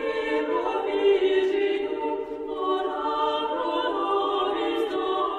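Choir singing a cappella in long held notes.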